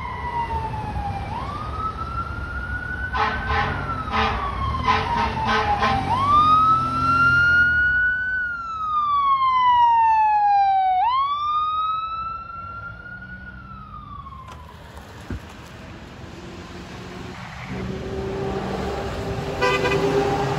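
Fire truck siren wailing in rising and falling sweeps, with short rapid repeated blasts about three seconds in, over the rumble of the moving truck. About two-thirds of the way through the sound drops to quieter vehicle rumble, and a lower steady horn-like tone comes in near the end.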